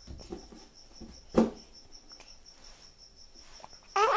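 A cricket chirping steadily in a fast, even pulse of about five chirps a second, with faint clinks of a wire whisk in a steel bowl and one sharp knock about a second and a half in. Near the end a child's high-pitched squeal cuts in.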